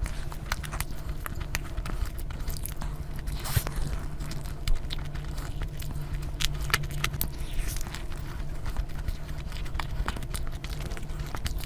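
A person eating close to the microphone: many short sharp bites and mouth clicks as food is chewed, over a steady low hum.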